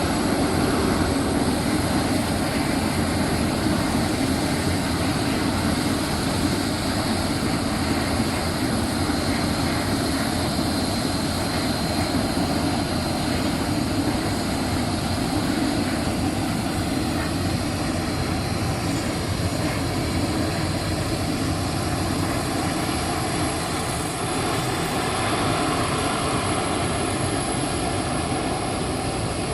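Boeing 737 jet engines running steadily, with a faint high whine that fades out about halfway through.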